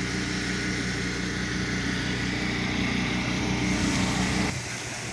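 Pressure washer's gas engine running steadily under a constant hiss of spray. Both stop abruptly about four and a half seconds in.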